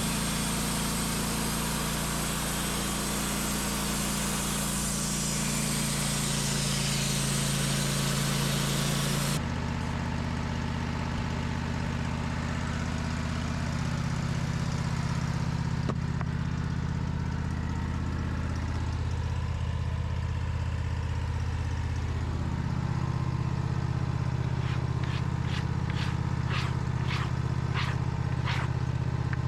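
Band sawmill's engine running under load while the band blade cuts through an oak log, with a loud hiss of cutting that stops abruptly about nine seconds in as the blade leaves the wood; the engine runs on steadily. Near the end come a series of short high ticks, about two a second.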